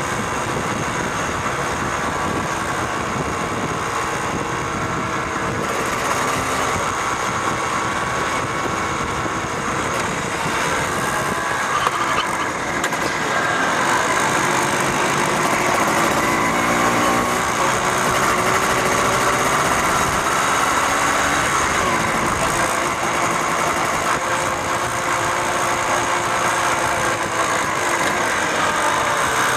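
Motorcycles running at road speed: steady engine and road noise, the engine pitch rising and falling several times past the middle, a little louder from about twelve seconds in.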